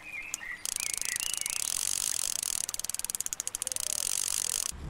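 Intro sound effect: a fast, high-pitched ratcheting buzz that starts about half a second in and cuts off sharply near the end, after a few faint chirps at the start.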